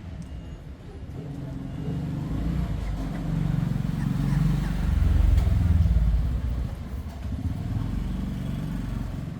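Low rumble of a motor vehicle going past, swelling to its loudest around the middle and then fading.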